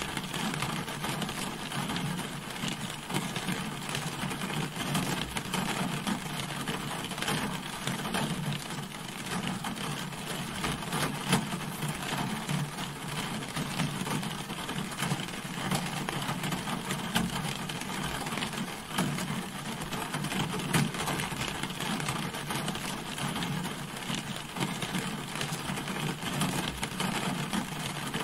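Steady rain falling on a car: a dense patter of individual drop taps over an even hiss.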